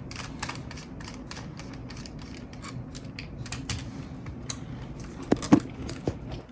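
Small screwdriver turning out a tiny screw from the metal shield inside a laptop: a run of light, irregular clicks, with a couple of sharper clicks about five and a half seconds in.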